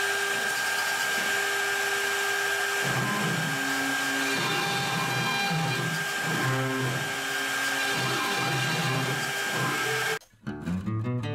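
CNC router spindle running with a steady high whine while a V-bit carves into plywood. From about three seconds in, the Nema 34 stepper motors add low tones that jump up and down in pitch as the machine moves the bit through the cut. The machine sound cuts off about ten seconds in.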